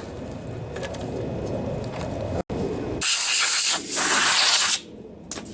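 Compressed air hissing from an air nozzle in two loud bursts, starting about three seconds in with a brief break between them.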